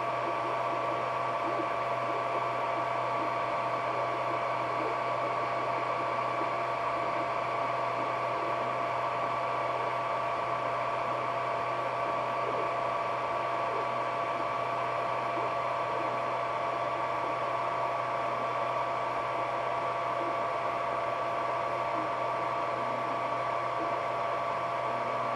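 Creality Ender 3D printer running mid-print: a steady whir of its cooling fans, with two steady tones over an even hiss and a low hum, unchanging throughout.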